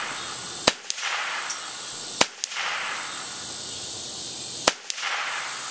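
Three shots from a Ruger 10/22 .22 LR rifle firing CCI standard-velocity rounds, the second about a second and a half after the first and the third about two and a half seconds later, each followed by a brief ring as the AR500 steel gong targets are hit.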